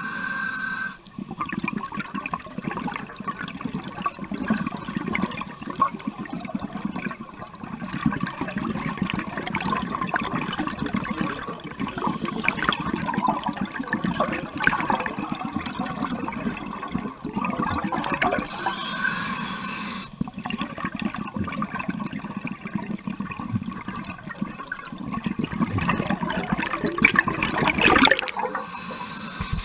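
Scuba breathing heard underwater: a continuous muffled rush of regulator airflow and exhaled bubbles, with two louder surges in the second half.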